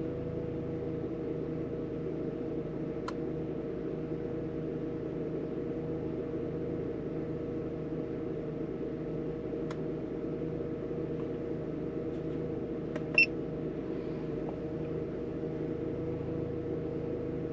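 Vehicle engine idling: a steady hum with a faint even pulse underneath. About 13 seconds in, the scan tool gives one short beep as a button is pressed, and there are a couple of faint clicks.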